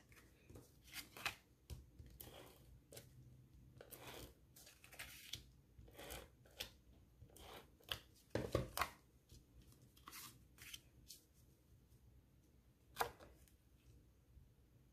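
Faint, scattered short rustles and zips of a Stampin' Seal tape runner laying adhesive on cardstock, mixed with cardstock being handled and pressed down, one stroke every second or two.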